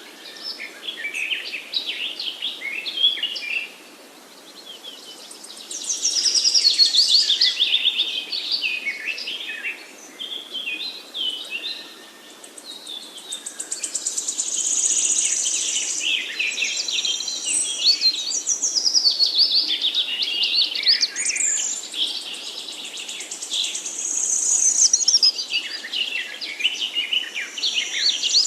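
Several woodland songbirds singing, with overlapping varied phrases and rapid trills in bouts of a few seconds and short lulls between them.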